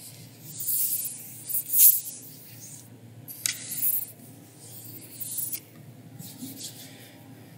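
Several short bursts of hissing, rustling noise close to the microphone, over a faint steady hum.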